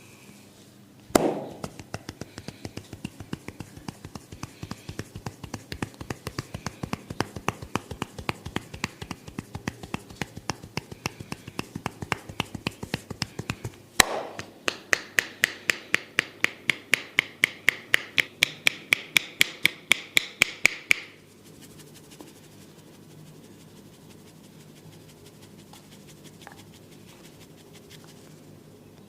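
Fast percussive tapping of hands on a person's head during a head massage, an even rapid rhythm of strokes. Partway through, a harder run of sharper, brighter slaps follows, and it stops abruptly.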